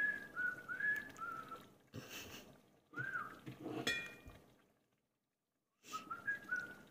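A person whistling a tune in short gliding phrases, with a brief ringing clink of kitchenware about four seconds in.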